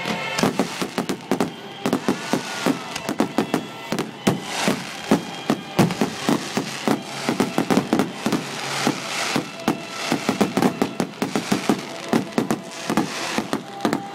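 Fireworks display: aerial shells and crackling effects going off in rapid, irregular bangs, several a second.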